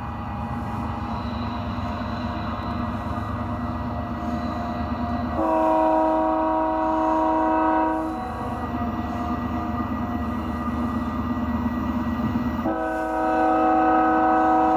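HO scale model coal train running with a steady rumble, and a multi-tone diesel locomotive horn sounded in a long blast about five seconds in, and again near the end.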